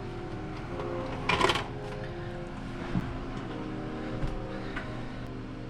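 Soundtrack of an old VHS skateboarding video playing back on a TV: held tones that shift every second or two over a low hum, broken by one short loud burst of noise about a second and a half in and a couple of faint knocks.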